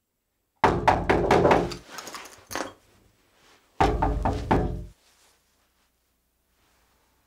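Heavy, rapid knocking on a door: two bursts of about half a dozen blows each, a few seconds apart.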